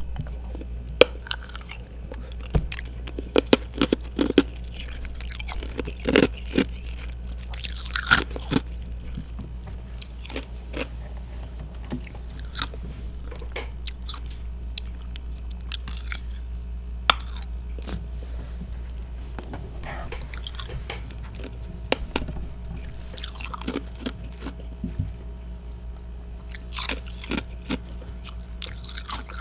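A person biting and chewing ice close to the microphone: sharp, irregular crunches, densest in the first ten seconds, over a steady low hum.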